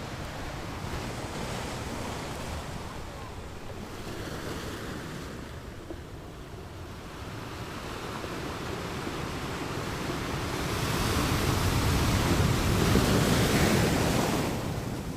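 Wind and road noise from a moving car, a steady rushing that swells louder for a few seconds near the end.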